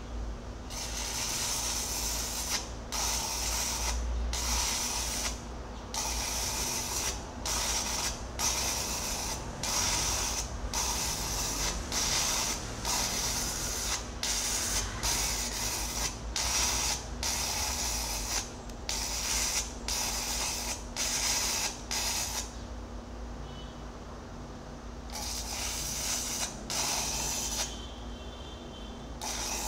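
Arc welding on a steel excavator bucket: the arc crackles and hisses in short runs of about a second, stopping and restarting many times, over a steady electrical hum. About three-quarters of the way through it pauses for about three seconds, then a few more runs follow.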